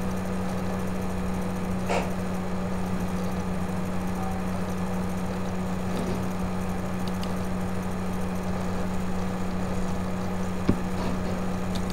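Steady low electrical hum with a background hiss, and two faint clicks, one about two seconds in and one near the end.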